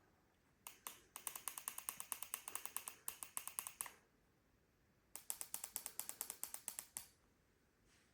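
Rapid runs of small, sharp plastic clicks, about nine a second: a couple of single clicks, then one run of nearly three seconds and a second run of about two seconds.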